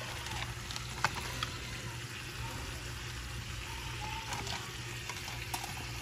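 Cream sauce sizzling and simmering in a pan on the stove, a steady hiss with a few light clicks.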